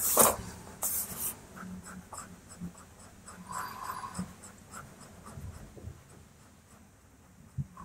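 A blending tool's tip rubbing over pastel on paper in short, uneven strokes, loudest right at the start.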